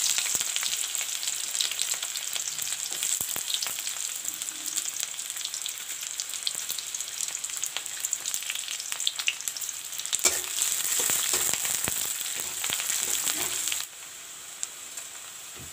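Chopped onions sizzling and crackling in hot mustard oil in a metal kadai, stirred with a metal spatula in the later part. The sizzle drops quieter near the end.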